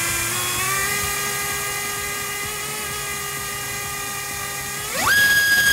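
AMAXinno 2307 2700KV brushless FPV motor spinning a Gemfan 5040 propeller on a thrust test stand, whining steadily at low throttle. About five seconds in it is punched up to full throttle: the pitch jumps sharply higher and the sound gets much louder.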